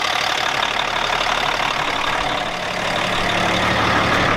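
Caterpillar six-cylinder turbo diesel of a 1990 Peterbilt semi idling steadily, running again after months of sitting. A low hum in the engine sound grows stronger about halfway through.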